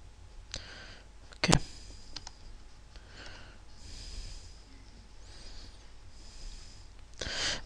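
A few sharp computer mouse clicks, the loudest about a second and a half in, over quiet breathing close to the microphone, with a louder breath near the end.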